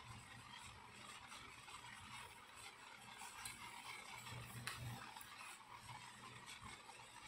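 Near silence: quiet room tone with a couple of faint ticks.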